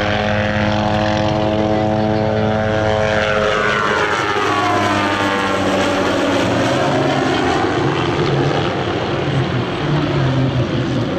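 Hughes MD 500 helicopter flying past: the whine of its Allison 250 turboshaft turbine and the beat of its rotor. The pitch slides down a few seconds in as it goes by, and it keeps running steadily as it flies away.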